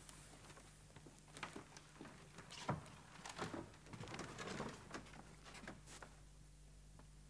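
Faint footsteps and knocks of shoes on wooden stage boards as two people walk across the floor, irregular, the sharpest knock about a third of the way in; they die away near the end.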